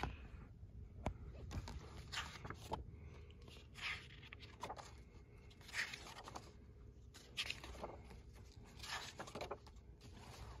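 Faint rustling and scraping of paper and a plastic sleeve as a service booklet is handled and its pages are turned, in short scattered bursts about once a second.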